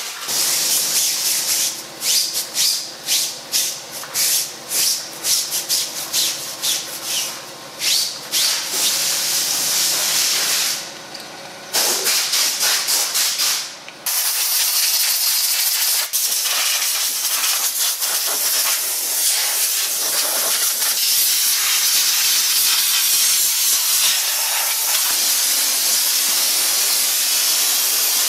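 Brush bristles scrubbing a soapy alloy wheel in quick back-and-forth strokes, about two to three a second, with a short break. About halfway through this gives way to the steady hiss of a steam cleaner's jet spraying the wheel.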